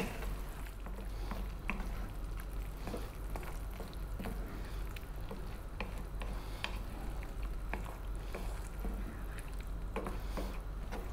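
Wooden spoon stirring a thick, simmering sausage, tomato and baked-bean mixture in a non-stick frying pan: quiet, scattered soft ticks and wet squelches from the spoon and the bubbling sauce.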